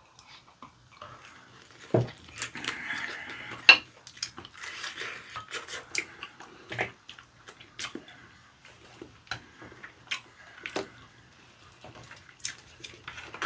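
Chopsticks clicking and tapping against ceramic bowls and plates in scattered sharp clicks, with softer sounds of fried chicken being chewed between them.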